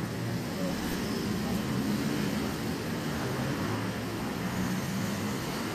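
City street traffic: a steady rumble of vehicle engines with a low hum and general road noise.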